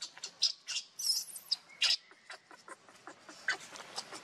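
Baby monkey squeaking: a run of short, high-pitched squeaks in quick succession, with one longer wavering squeal about a second in.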